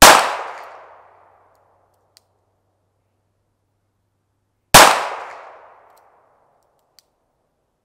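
Two single shots from a Taurus 856 .38 Special snub-nose revolver, about four and a half seconds apart, each a sharp crack followed by about a second of echo dying away. A faint short tick follows each shot about two seconds later.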